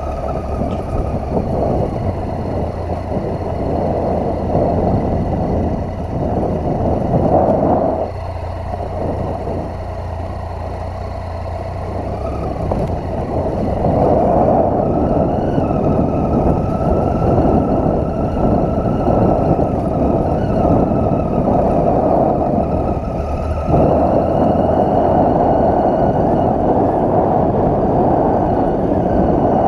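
Triumph Tiger 800's three-cylinder engine running under way on a rough gravel track, mixed with wind and road noise. The sound falls back about eight seconds in, picks up again around fourteen seconds, and gets louder once more with a sudden step near the end.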